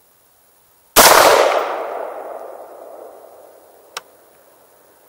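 A single 5.56 NATO rifle shot from an AR-15 with a 20-inch rifle-length barrel, about a second in, its report echoing away over the next two to three seconds. A short sharp click follows about three seconds after the shot.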